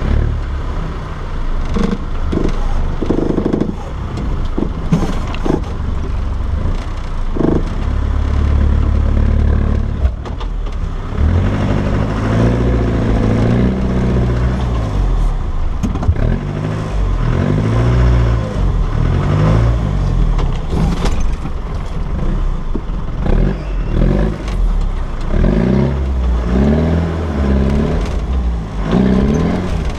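Land Rover Defender 90's engine working as the vehicle crawls over rough, muddy off-road ground, the revs rising and falling again and again in the second half. Scattered knocks and clatter come from the vehicle.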